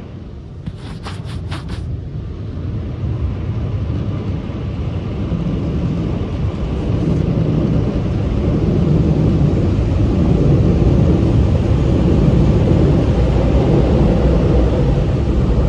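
Car wash dryer blowers roaring, heard from inside the car; the low rumbling roar grows steadily louder as the car reaches the tunnel exit and then holds. Four quick clicks come about a second in.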